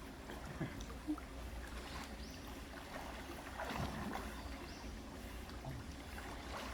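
Mountain stream water running steadily, with a low rumble beneath it.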